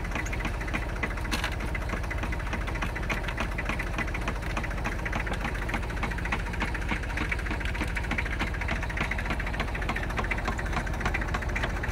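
Homemade chain-driven cable winch running, its chain and gears clattering rapidly and evenly over the steady drone of the engine that drives it.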